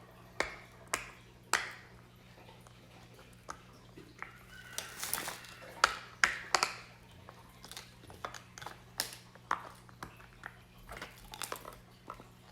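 Mini silicone pop-it fidget toy having its bubbles pressed on its loud side, giving a series of sharp pops at irregular intervals, thickest around five to seven seconds in.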